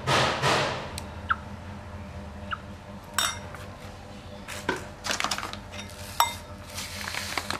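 Metal spoon clinking and scraping against a ceramic bowl of raw duck eggs: a short rustle at the start, then scattered sharp clinks with a brief ring, most of them in the second half.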